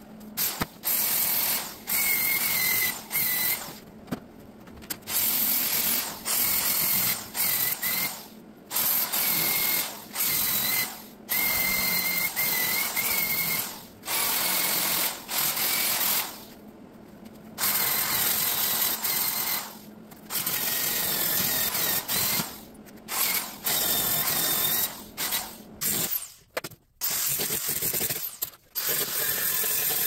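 MIG welder crackling in a string of short welds, each burst a second or two long and stopping sharply, with brief pauses between them: stitch-welding sheet metal on a truck door.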